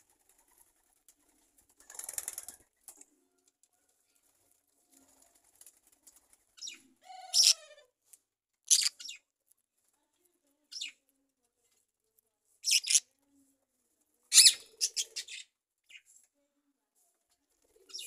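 Small aviary birds giving short, high chirps, singly and in quick clusters, with one call sliding down in pitch about seven seconds in. A brief rustle about two seconds in.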